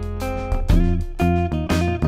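Background music with plucked notes over a steady bass.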